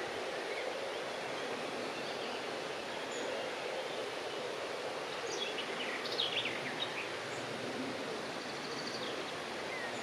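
Steady outdoor background noise, with a bird giving a quick run of short, falling chirps about five to seven seconds in.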